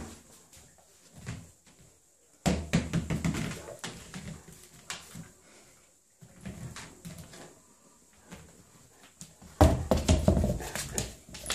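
A large dog playing with a rubber ball toy on a hard floor: scattered clicks and knocks of the toy and its paws, in a few bursts with quiet between, the loudest near the end.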